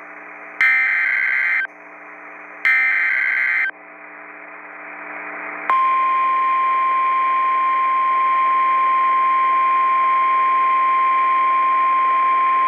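Emergency Alert System warning as sent over NOAA Weather Radio. Two screechy digital data bursts of about a second each, the SAME header that encodes a severe thunderstorm warning, play over radio hiss. About six seconds in, a single steady warning alarm tone starts and holds.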